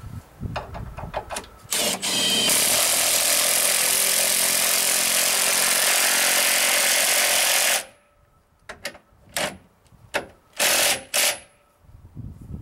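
Cordless power driver driving a screw into the cabin's bottom log. One long run of about six seconds cuts off suddenly, then comes a string of short trigger bursts as the screw is snugged down.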